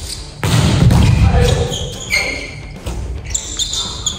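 Indoor volleyball rally: the ball being struck, with sneakers squeaking on the wooden court and players shouting. A sudden loud burst comes about half a second in.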